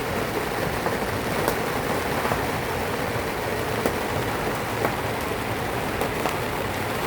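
Loud tropical rain falling on a sailboat's bimini and cockpit: a steady hiss with a few sharper drop ticks scattered through it.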